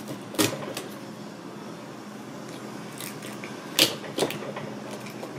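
Chef's knife pushed into a live lobster's shell on a plastic cutting board: a few short, sharp cracks and clicks, one near the start and a cluster around three to four seconds in, the loudest near four seconds. A steady low hum runs underneath.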